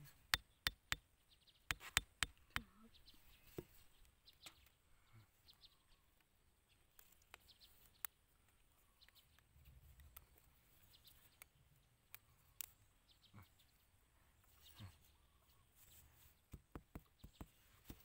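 Faint, scattered sharp clicks and taps, in quick clusters near the start and again near the end: small bamboo sticks of a ground trap's trigger being handled, fitted together and pressed into the soil.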